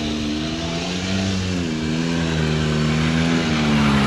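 Koplin 90cc two-stroke ATV engine running under throttle as it is ridden, its pitch rising and falling with the throttle and climbing near the end as it comes closer and grows louder.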